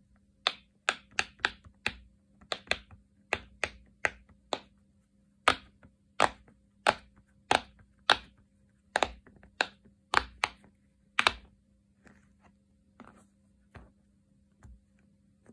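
Bubbles of a silicone push-pop fidget toy being pressed in one after another by fingers: a quick, uneven series of sharp pops, about two a second, thinning to a few faint ones about twelve seconds in.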